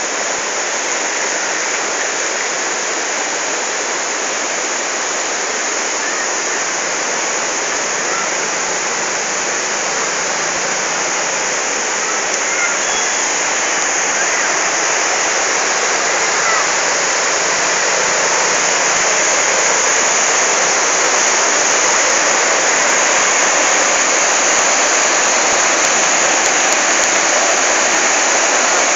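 River in flash flood after a thunderstorm, its fast, muddy water rushing steadily and growing a little louder toward the end.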